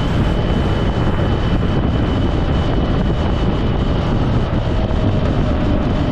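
Vehicle on the move, recorded on board: steady engine and road noise with wind rush on the microphone.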